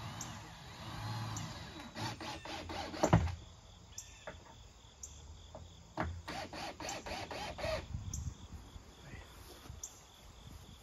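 Cordless drill driving screws into plywood: the motor runs, then two spells of rapid, even clicking, about two seconds in and again about six seconds in, the first ending in the loudest hit.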